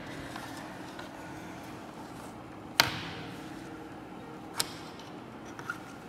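Three sharp clicks of small plastic toy figures being set down and tapped on the model's board, the loudest about three seconds in, over a steady low hum.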